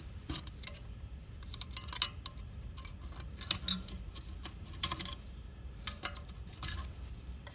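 Small metal clicks and scrapes of a steel pick prying a snap ring out of its groove inside a 4L60E transmission, irregular, with one sharp click about three and a half seconds in.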